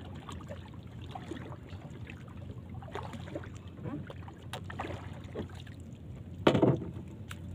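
Water lapping softly around a small drifting wooden fishing boat, with scattered faint ticks. About six and a half seconds in, the paddle knocks loudly once against the boat as it is laid down.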